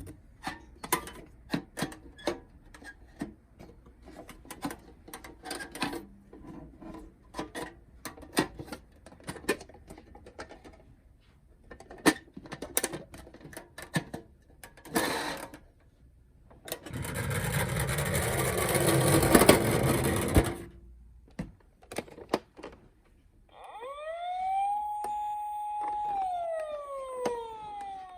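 Clicks and knocks of plastic toy vehicles being handled, then a few seconds of rolling, whirring noise. About 23 seconds in, a toy ambulance's electronic siren starts: a wail that rises, holds at the top and falls, then rises again.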